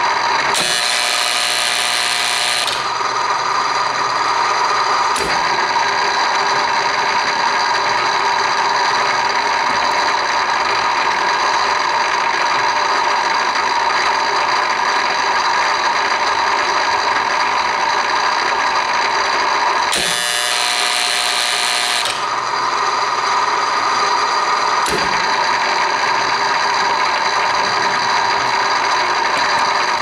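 Kingsbury 23 tapping unit running through its cycle: a steady machine hum and whine, broken twice, near the start and about twenty seconds in, by a louder, higher-pitched two-second stretch, each followed about three seconds later by a sharp click.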